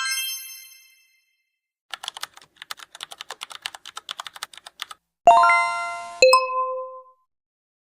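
A string of short editing sound effects: a bright, ringing chime, then about three seconds of rapid computer-keyboard typing clicks, then a two-note notification chime that falls from the higher note to the lower.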